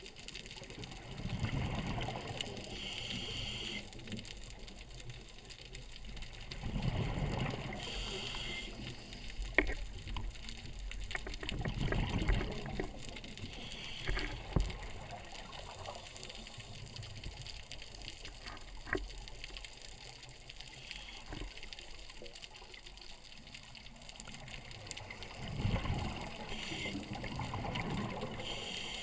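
Scuba diver breathing through a regulator underwater: four gurgling bursts of exhaled bubbles, each ending in a short hiss, with a few faint clicks in the quieter stretches between them.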